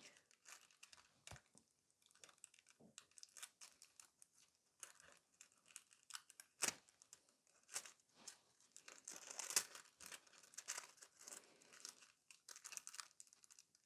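Faint crinkling and rustling of a sheet of rose gold nail transfer foil being handled and pressed onto a gel nail tip, in short scattered crackles with a few louder ones in the middle.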